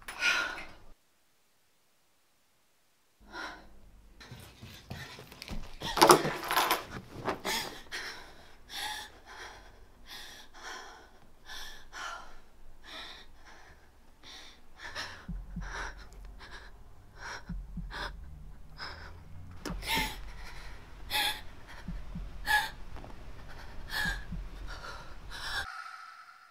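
A person gasping and panting in short, sharp breaths, one or two a second, starting a few seconds in; a low rumbling drone joins about halfway, and everything cuts off suddenly just before the end.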